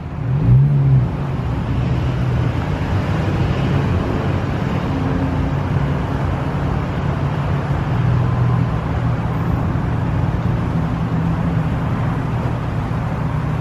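Steady road traffic noise with a low, continuous engine hum from nearby vehicles.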